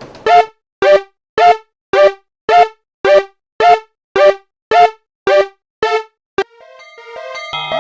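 Railway crossing alarm ringing in evenly spaced pitched strokes, about two a second, which stop about six and a half seconds in. Near the end a mix of held tones and a rising glide comes in.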